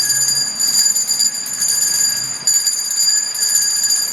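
Salvation Army hand bell shaken rapidly, a continuous bright jangling ring that eases off briefly twice in the middle.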